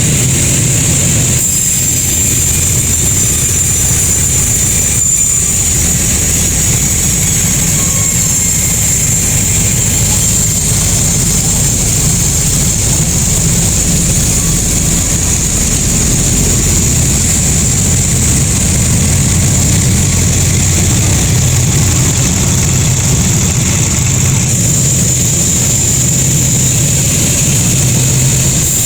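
Sawmill machinery running steadily: a continuous loud low drone with a steady high-pitched whine over it.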